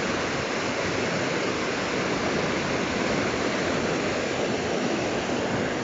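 Steady rush of fast-moving water, too rough for calm fishing.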